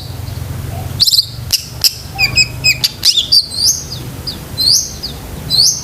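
Long-tailed shrike (cendet) singing a fast, varied run of short chirps and upward-sweeping whistles, a song stuffed with mimicked calls of other birds.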